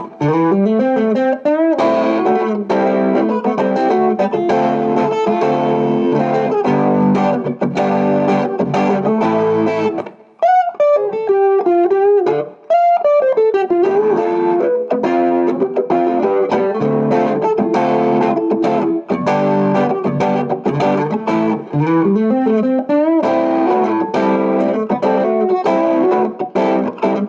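Donner headless travel electric guitar played through distortion and effects: sustained chords with sliding runs, and a brief single-note phrase with bent, wavering notes a little before the middle.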